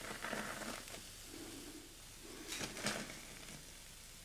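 Faint scraping and light taps of a nylon spatula and a wooden spatula on a ceramic plate as fried, breaded slices are set down on it. There is a soft burst right at the start and two more close together between two and three seconds in.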